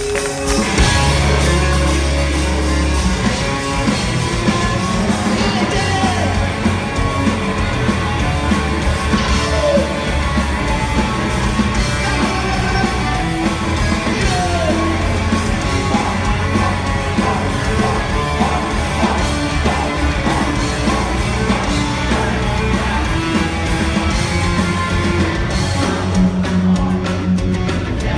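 Punk rock band playing live through a large hall's PA: electric guitars, bass and drums, with a male lead singer half-shouting the vocal over the band.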